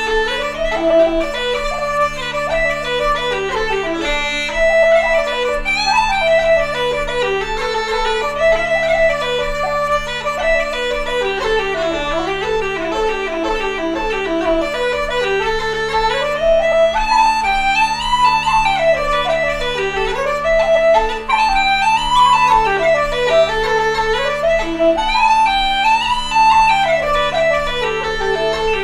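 Wooden Irish flute and uilleann pipes playing a lively jig together. The melody runs quickly over the pipes' steady drone.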